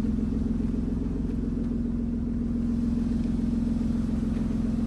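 Steady low hum of an engine or motor running at an even speed, with a low rumble beneath it.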